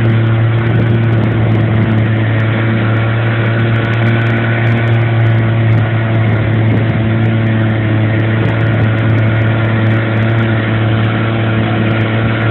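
Small fishing boat's motor running steadily at one unchanging pitch, a constant low hum.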